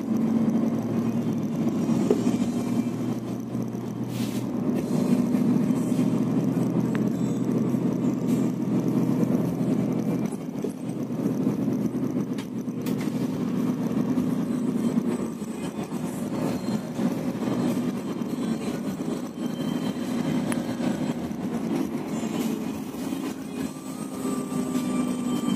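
Coach bus driving along, heard from inside the passenger cabin: a steady low engine drone mixed with road and tyre noise.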